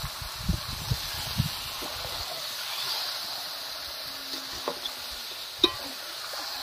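Raw chicken pieces being stirred with a flat spatula through hot spiced masala in a metal kadai: a steady sizzle, dull knocks of the spatula in the first second or so, and a few sharp clicks against the pan, the sharpest about five and a half seconds in.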